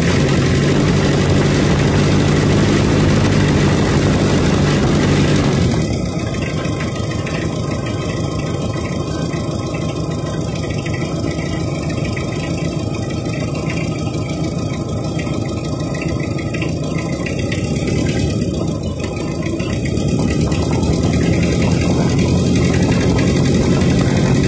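Toyota 2C four-cylinder diesel engine running steadily at idle with its diesel clatter, louder for the first six seconds, quieter in the middle and louder again from about twenty seconds in.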